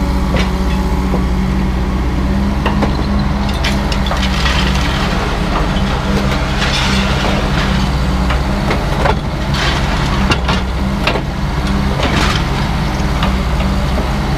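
Heavy diesel scrapyard machine running steadily under load while scrap metal is handled, with repeated metal clanks, knocks and crunching throughout.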